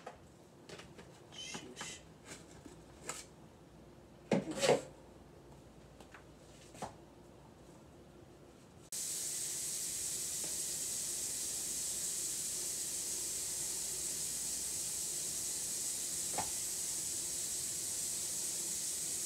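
Leaves rustling and light knocks of plant pots being handled, with a louder clatter about four and a half seconds in. About nine seconds in, a steady hiss starts abruptly and carries on.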